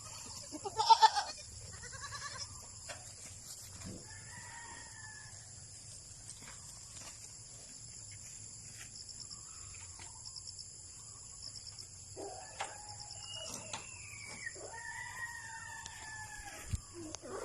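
Farmyard animals: a goat gives a loud bleat about a second in, and a rooster crows with gliding calls in the last few seconds. A steady high-pitched drone runs underneath.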